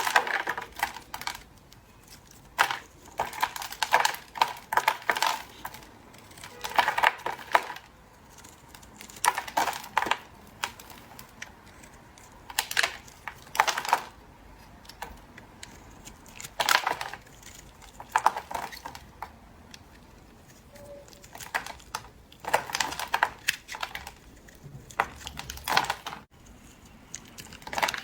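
A knife cutting into a bar of soap, crisp crackling and snapping in short bursts of about a second, repeated every few seconds with quiet pauses in between.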